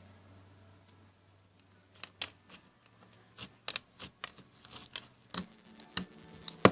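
A quiet start, then a string of irregular sharp clicks and small pops from about two seconds in, getting busier near the end.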